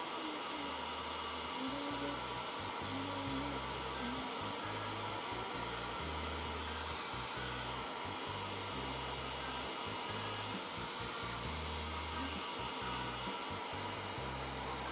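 Handheld hair dryer running steadily, blowing on a freshly shampooed kitten's fur.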